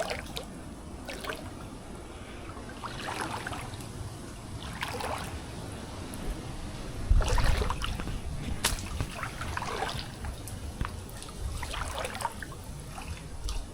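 Shallow water trickling, with irregular splashes every second or two as people step through it. A low thump about seven seconds in is the loudest moment.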